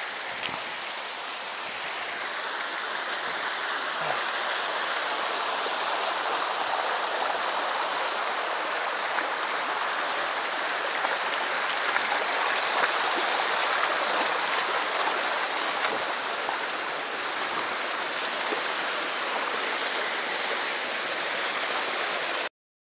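Shallow, low-running mountain stream rushing over rocks in riffles, a steady wash of water that grows a little louder about two seconds in and cuts off suddenly near the end.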